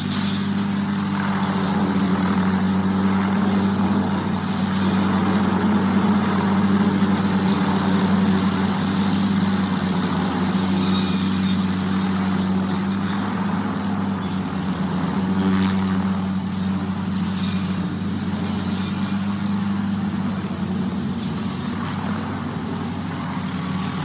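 Helicopter with a suspended aerial saw, a vertical row of circular blades, working through treetops: a steady engine and rotor sound with a strong low hum. A short sharp sound about two-thirds of the way through.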